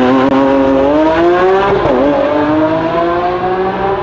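Race car engine sound accelerating, its pitch climbing steadily. About two seconds in it dips briefly, like a gear change, then carries on, gently rising.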